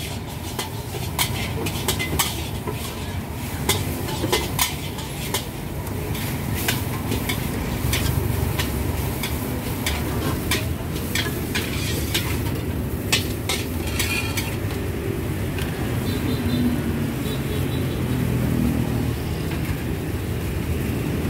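Metal ladles and a spatula clinking and scraping against aluminium pots and a wok, in quick irregular knocks that thin out after about fourteen seconds, over a steady low rumble.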